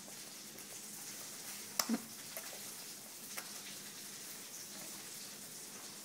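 Faint, steady hiss of room noise. A sharp click comes just under two seconds in, with a second brief sound right after it. A couple of lighter clicks follow later.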